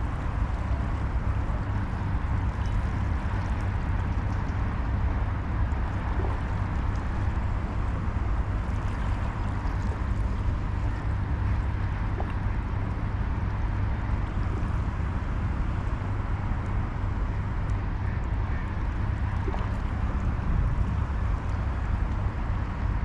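Steady wind rumble buffeting the microphone, over an even hiss.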